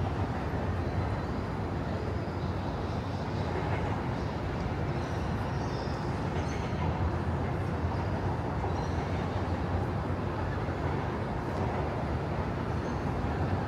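Steady outdoor city ambience: a constant low rumble with a few faint high chirps here and there.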